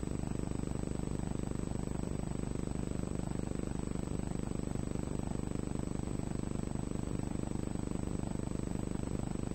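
Steady mechanical hum of an underwater remotely operated vehicle's motors and thrusters, made of several even low tones with a thin high whine above, unchanging throughout.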